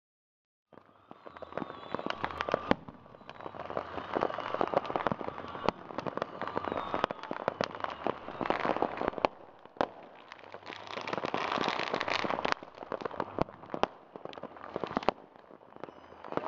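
Fireworks going off: a dense run of sharp bangs and crackling that starts about a second in.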